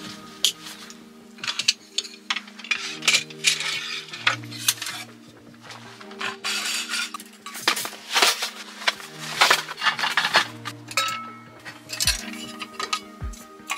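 Metal camping cookware, mugs and pots, clinking and rattling as it is handled, taken off hooks and packed away, with fabric rustling in between. Soft background music plays steadily underneath.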